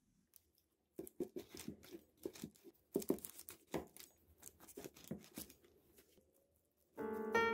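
A knife cutting through a pan-fried tofu and zucchini sandwich on parchment paper: a run of short crackling, crinkling strokes from about a second in. Piano music comes in just before the end.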